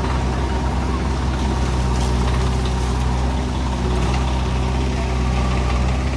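An engine running steadily at idle: a low, even drone.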